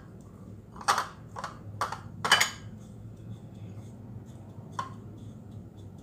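Light clinks and knocks of kitchen bowls and a fork, several in quick succession in the first half and one more near the end, while spam sticks are pressed into breadcrumbs by hand. A low steady hum runs underneath.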